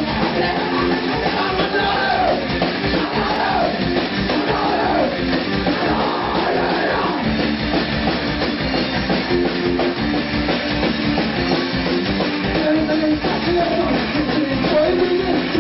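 Rock band playing live: drum kit, guitar and a man singing into a microphone, loud and continuous.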